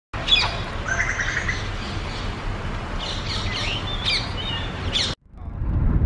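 Several birds calling: short rising and falling chirps and whistles, with a fast trill about a second in, over a steady background hiss. It cuts off abruptly about five seconds in, and the low rumble of road noise inside a moving car fades up.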